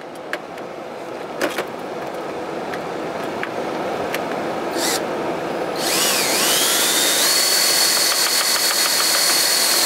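DeWalt cordless drill driving a sheet-metal screw up through a metal gutter guard into the gutter. After a few seconds of light handling clicks, the motor spins up about six seconds in. Its whine dips and rises, then holds a steady high pitch.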